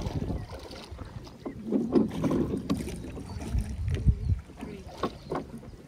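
Rowboat under way with wooden oars pulling through the water: uneven splashing and swishing of the blades, with a few short knocks from the oars in their metal oarlocks.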